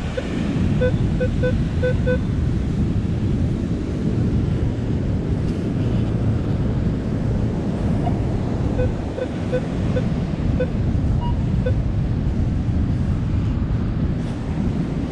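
Wind buffeting the microphone over crashing surf, with short repeated metal detector beeps: a quick run of about five about a second in, and another scattered run from about nine to twelve seconds in. The detector is sounding on a buried target, which reads 16 and turns out to be a zinc penny.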